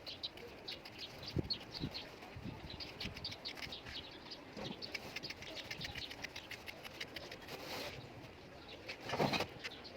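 Small birds chirping in quick, repeated short notes, with a few soft low knocks early on and a brief louder scraping rustle near the end.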